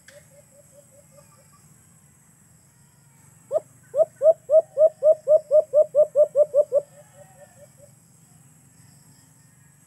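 A caged alimokon turtle dove calling in a run of low cooing notes, about four a second. Soft notes in the first second and a half give way, about three and a half seconds in, to a loud run of about a dozen notes, which trails off softer near the eight-second mark.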